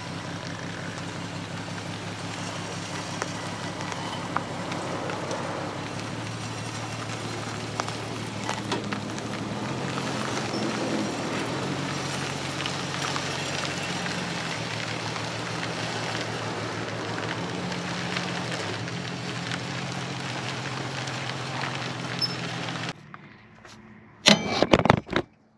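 A vehicle engine running with steady pitch that shifts now and then, with tyres crunching and crackling over gravel as the chassis is towed. The noise cuts off near the end, followed by a short loud burst.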